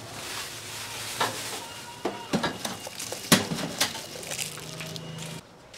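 Takeaway food being packed at a street food stall counter: plastic bag rustling and several sharp clinks and knocks of bowls and containers on the steel counter.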